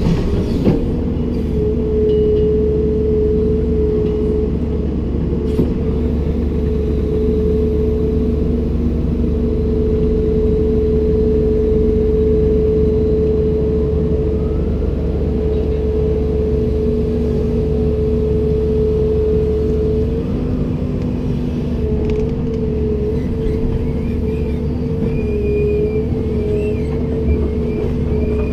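Komatsu PC290-10 excavator's diesel engine running steadily, with a constant whine over the low rumble that shifts slightly about two-thirds of the way through. A faint, wavering high squeal joins near the end.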